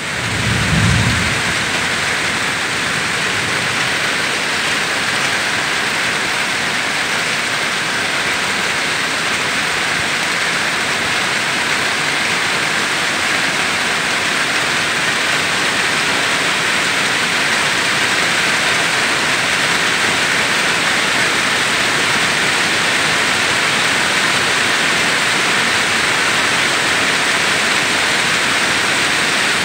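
Heavy rain pouring steadily onto corrugated metal roofing and foliage, an even unbroken patter. There is a brief low thump about a second in.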